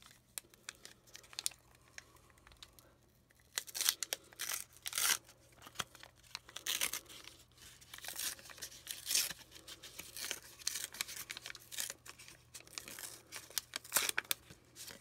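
Wrapper of a McDonald's Pokémon card pack being torn open and crinkled by hand, in irregular bursts of tearing and crackling from about three and a half seconds in.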